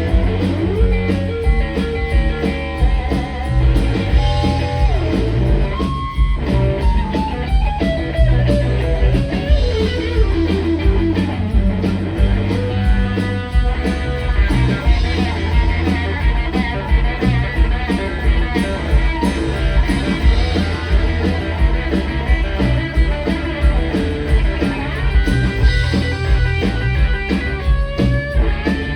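Live band playing an instrumental break in a rock and blues song: an electric guitar solo with bending notes over bass and drum kit.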